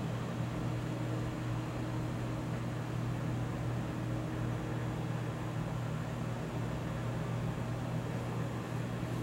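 A steady low machine hum under an even hiss, unchanging throughout.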